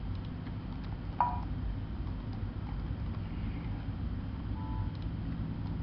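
Steady low hum and background noise from the recording, with one short sharp click about a second in and a faint brief tone near the end.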